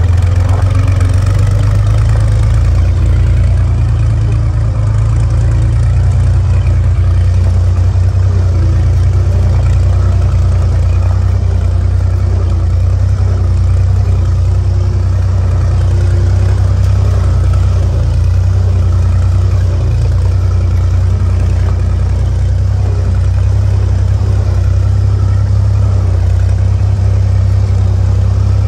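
1944 Willys Jeep's four-cylinder Go Devil flathead engine running steadily while the jeep drives along a rocky dirt trail.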